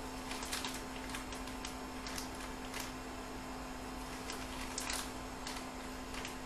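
A spoon scooping curry powder into a bowl: irregular light clicks and scrapes, over a steady background hum.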